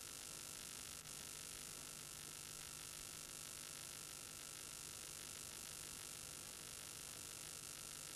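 Steady hiss with a faint electrical hum and buzz, unchanging throughout: the recording's own noise floor, with no distinct event, with a brief dropout about a second in.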